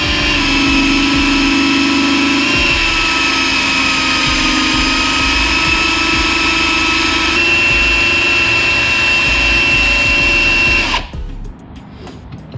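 Powered oil-extractor pump running steadily with a motor whine as it sucks engine oil out through a hose pushed down into the engine. Its pitch shifts slightly about two and a half and seven seconds in, and it cuts off suddenly near the end.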